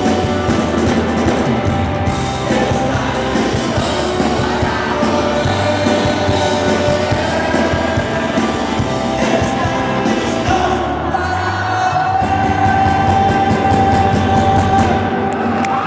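Live rock band, with a male lead singer over electric guitar, keyboards, bass and drums, heard from the audience. About eleven seconds in, the cymbals drop away and the singer holds one long note until the song nears its end.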